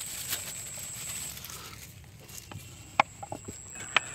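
Dry rice grains pattering out of a plastic jar onto a steel plate, with two sharp clicks and a few small ticks near the end as the jar and plate are handled.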